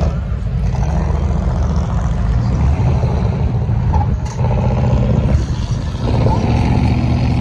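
Classic American cars driving slowly past one after another, their loud exhausts giving a deep, steady engine rumble.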